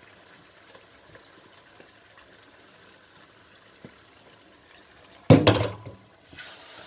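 Faint steady simmer of wet onion-tomato masala in a steel pot as frozen spinach is tipped in, with a few small ticks. About five seconds in, a sudden loud burst of noise lasts under a second, followed by quieter noise.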